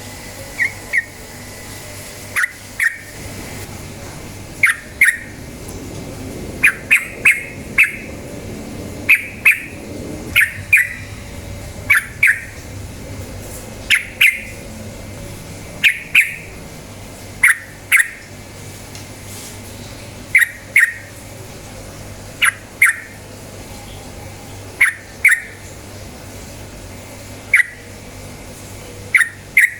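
Yellow-vented bulbul giving short, sharp calls, one at a time or in quick pairs, every second or two.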